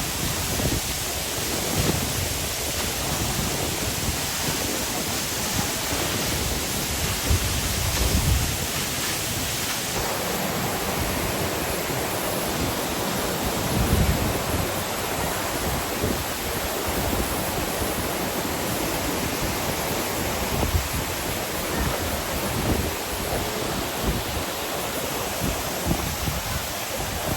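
Waterfall pouring steadily, a full, even rush of falling water, with now and then a low rumble of wind buffeting the microphone.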